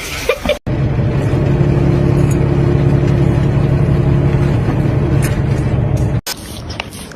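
Steady low machine hum, starting and stopping abruptly about half a second in and near the end.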